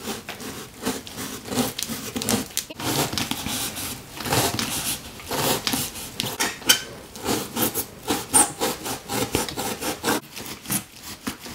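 Hands rubbing and pressing packing tape down onto a cardboard box: quick, irregular scratchy strokes.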